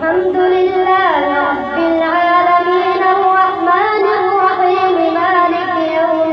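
A boy's voice reciting the Quran in melodic tajweed chant: one long unbroken phrase with ornamented rises and falls in pitch, breaking off for a breath near the end.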